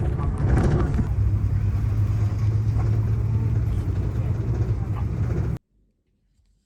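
Steady low hum of a parked airliner's cabin during deplaning, with faint voices and small clicks over it. It cuts off suddenly about five and a half seconds in.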